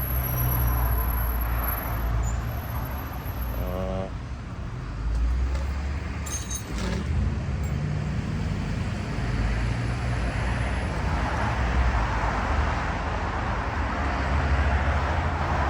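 Steady low rumble of road traffic, swelling in the second half, with a brief squeak about four seconds in and a few faint clicks a couple of seconds later.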